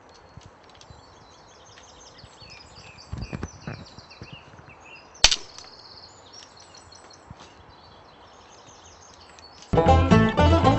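Birds chirping over faint handling of twigs and a wire cage trap, with a few knocks and one sharp click about five seconds in. Loud music starts suddenly near the end.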